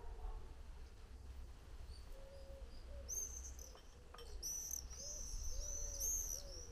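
Garden birds calling: a series of soft, low cooing notes, joined about three seconds in by a small bird's high, rapid chirping.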